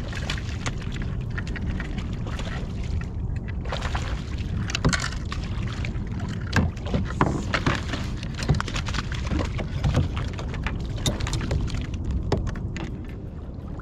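Water splashing and slapping beside a kayak as a hooked fish thrashes at the surface, over a steady low rumble of wind and water. Sharp splashes and knocks come thick in the second half.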